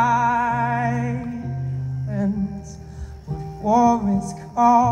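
A singer accompanying himself on a strummed acoustic guitar, live: a long sung note with vibrato at the start, then two shorter sung phrases near the end, over steady guitar chords.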